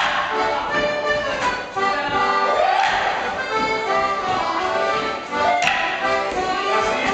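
An accordion playing a lively traditional Morris dance tune. About five and a half seconds in, a single sharp wooden clack sounds as the dancers' Morris sticks strike.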